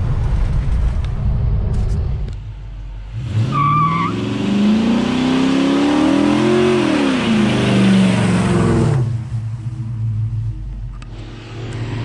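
A 1968 Charger's swapped-in 5.7 Hemi V8 rumbling low, then revving up hard for about five seconds while a tyre spins and squeals in a one-wheel peel, the revs rising and then falling away before it settles back to a low rumble.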